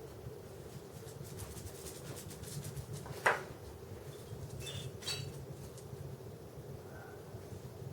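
Small metal objects clinking over a low steady hum: a run of light ticks, a sharp clink about three seconds in, then two ringing metallic clinks around five seconds.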